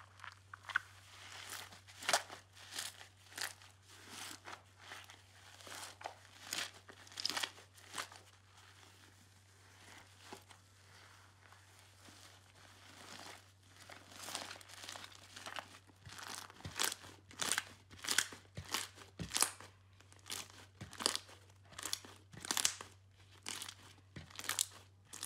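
Foamy, bubbly slime being stretched, pulled apart and squeezed by hand, giving irregular crackling pops, a few a second and more frequent in the second half, over a low steady hum.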